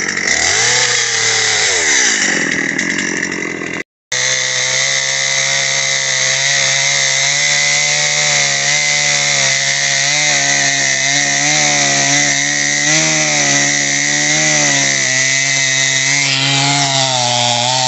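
Stihl MS 250 two-stroke chainsaw at full throttle cutting through a split ash log. In the first few seconds the engine pitch sags and recovers as the chain bites into the wood. After a brief gap at about four seconds it holds a steady high pitch with a slight waver as the cut goes on.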